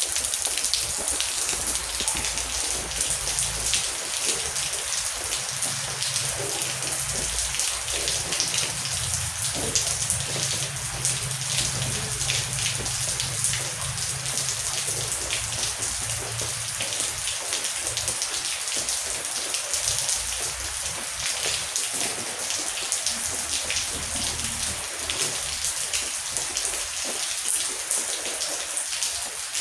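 Heavy rain falling steadily, a dense hiss full of individual drop patters. A low rumble of distant thunder runs under it through the first half, then fades.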